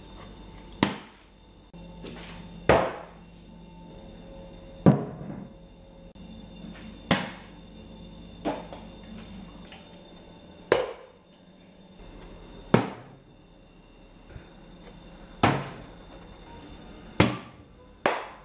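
Plastic water bottle landing hard after flips, about ten sharp thunks one to two seconds apart, each ringing briefly.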